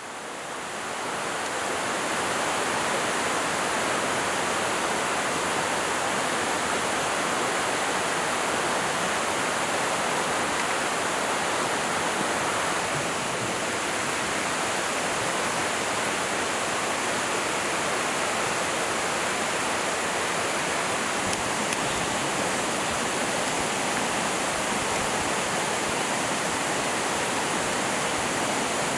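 Mountain stream rushing over rocks: a steady rush of water that swells up over the first two seconds, then holds level.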